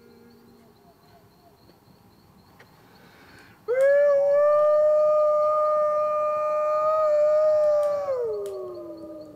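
A long howl begins a little under four seconds in after a faint stretch. It rises sharply, holds one steady pitch for about four seconds, then slides down in pitch as it fades.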